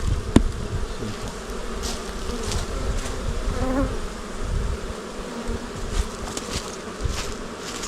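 Honeybees buzzing steadily around an open hive, with a sharp click about half a second in and a few light knocks.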